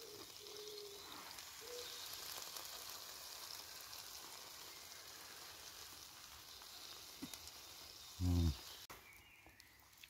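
Food sizzling in a wrought iron skillet over a campfire, a steady hiss that cuts off abruptly near the end. About eight seconds in, a person makes a short low hum.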